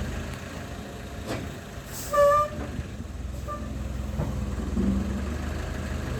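Heavy vehicle engine idling with a steady low rumble. About two seconds in, a short hiss of air comes with a loud, brief, pitched beep or horn note, and a shorter, fainter beep follows about a second later.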